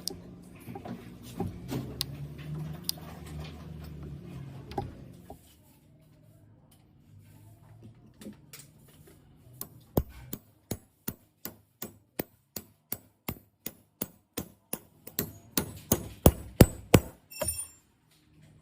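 Faint handling noise, then a run of sharp light taps on a hard object, about two a second, getting quicker and louder toward the end and finishing with a brief ringing sound.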